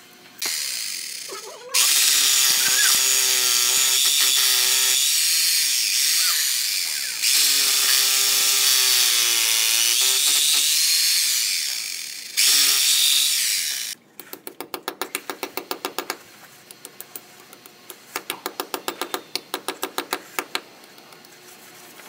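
Corded rotary hammer drill boring into a cement-rendered arch: it starts about half a second in and runs loud in three long spells with brief stops, its motor pitch wavering under load. After it stops, two runs of rapid, even ticking of about two seconds each, several ticks a second.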